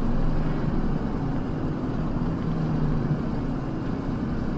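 Steady road and engine noise of a car heard from inside its cabin as it slows from about 30 to 20 mph, with a low engine hum that fades about three seconds in.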